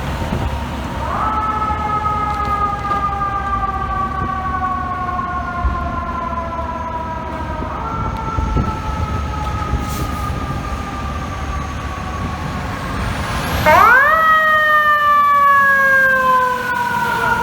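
Fire truck siren wailing, with a low truck-engine rumble underneath. The siren rises quickly and then falls slowly three times, a few seconds apart. The third rise, near the end, is the loudest.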